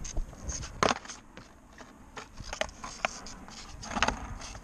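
Skateboard on concrete: several sharp clacks of the board, about a second in, twice more near the middle and once near the end, over a low wheel rumble that dies down in between.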